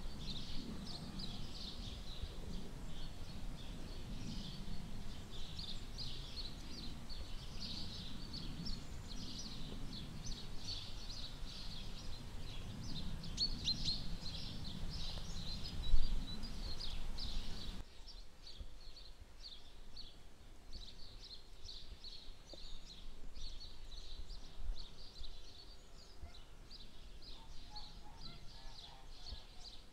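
Many small birds chirping and twittering nonstop over a low rumble. There is a single thump about halfway through, the loudest moment. The rumble drops away soon after, and near the end a lower, harsher bird call joins in.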